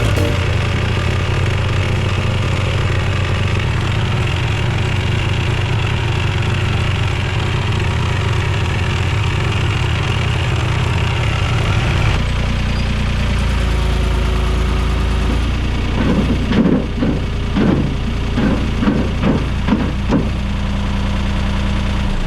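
Tractor engine running steadily. About twelve seconds in its note drops lower, and near the end the engine rises and falls several times in quick succession as it works.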